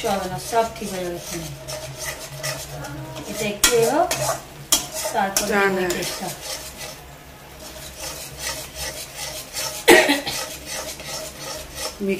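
Spatula stirring and scraping thick masala paste around a hot kadai, the paste sizzling, in irregular strokes with one louder scrape about ten seconds in; the masala is catching on the bottom of the pan.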